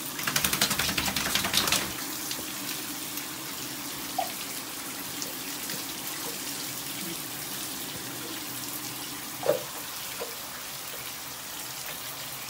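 Water running steadily from a tap or shower in a small tiled shower stall. There is a burst of rapid rustling in the first two seconds and a brief squeak about nine and a half seconds in.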